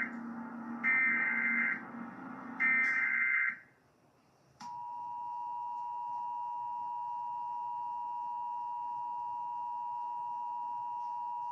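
Emergency Alert System signal: the end of one digital header burst and then two more, each about a second long, over a low hum. About a second after the last burst, the steady two-tone EAS attention signal comes in, some four and a half seconds in, and holds on.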